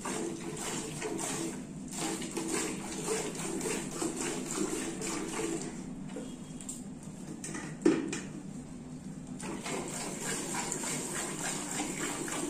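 Hand-milking: milk squirting from a cow's teats into a steel bucket with milk already in it, in quick rhythmic spurts. A single sharp knock about eight seconds in.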